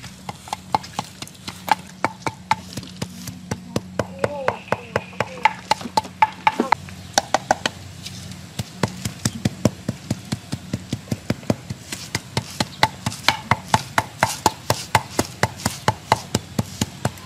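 Wooden pestle pounding in a wooden mortar: a steady run of knocks, about three a second, crushing dry pepper and chili for a pepper sauce.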